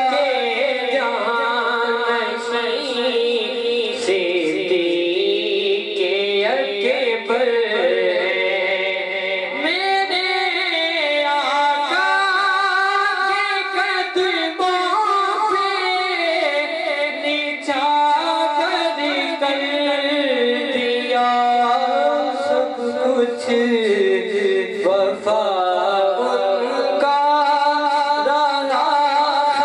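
A man singing a manqabat, a devotional poem of praise, into a microphone, with long held notes that bend and turn in ornamented runs.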